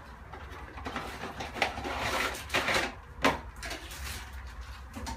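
A new plastic toilet fill valve being taken out of its packaging and handled: rustling with a few sharp plastic clicks and knocks.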